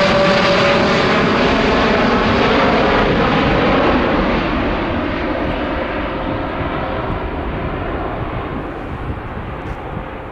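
Boeing 787-8 Dreamliner's twin jet engines at climb thrust as the airliner climbs away after takeoff: a loud rumble with a steady whine. It fades and grows duller from about four seconds in as the aircraft moves off.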